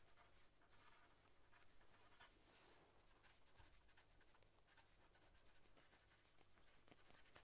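Near silence, with faint scratching of a pen writing on paper in short strokes.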